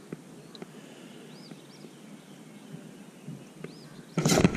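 Quiet outdoor ambience with a bird repeating a short rising-and-falling chirp about every two seconds and a few light clicks. Near the end a sudden loud rustling and knocking as the camera is handled and moved.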